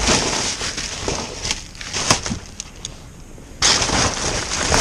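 Packaging being pulled off by hand, crackling and crinkling with irregular sharp snaps, and a louder stretch of rustling from about three and a half seconds in.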